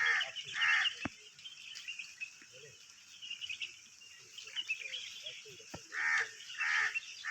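Birds calling: a pair of loud, pitched calls at the start and another pair about six seconds in, with faint high twittering chirps throughout. Two short sharp clicks, about one second in and near the end.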